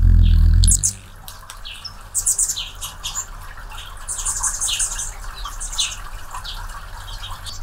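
Anna's hummingbird's wings humming loudly right at the microphone as it flies off the feeder, stopping within the first second. A run of short, high chip calls follows, with a quick, scratchy chatter about four seconds in.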